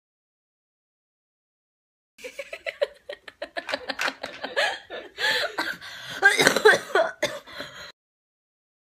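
Silent for about two seconds, then a woman laughing hard in rapid short bursts with coughing mixed in, which stops abruptly about two seconds before the end.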